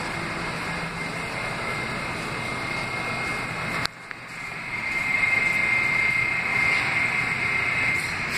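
Subway station din, then the rising noise of a subway train approaching through the tunnel: a rumble that grows louder from about halfway in, with a steady high whine over it.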